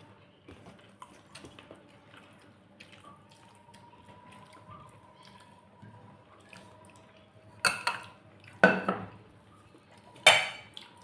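Tableware clinking at a meal: faint small clicks and wet food sounds, then three loud clatters of utensil and dish on a plate in the last few seconds.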